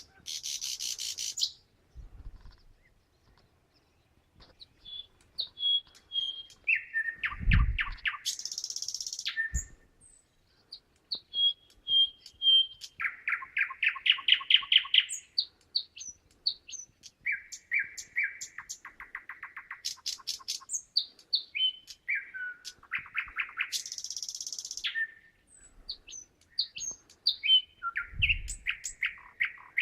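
A single songbird, which the uploader wonders might be a thrush nightingale, sings a varied song. It runs through phrases of fast repeated notes, harsh buzzy rattles and sharp whistles, with short pauses between them.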